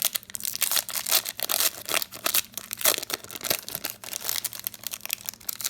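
Crinkling and tearing of a trading-card pack wrapper as it is handled and opened, an irregular run of crackles throughout.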